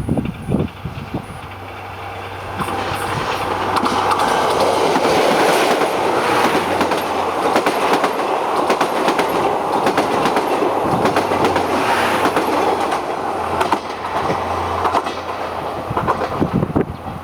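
Train of coaches hauled by a DE10 diesel locomotive rolling past close by, its wheels clacking over the rail joints. The sound builds over the first few seconds, stays loud for about ten seconds, and eases near the end.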